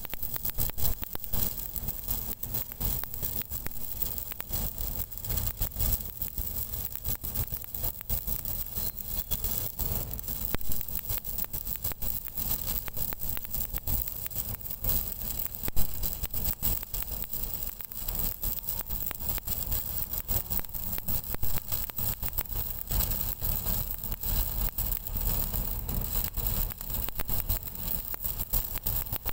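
Stick (shielded metal arc) welding arc on a large-diameter pipe: a continuous dense crackling and sizzling as the electrode burns, over a low rumble.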